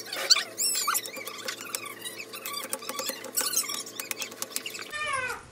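Knife chopping green chillies directly on a stone kitchen countertop, a quick, uneven run of sharp taps. Frequent high, falling squeaks or chirps sound over the chopping.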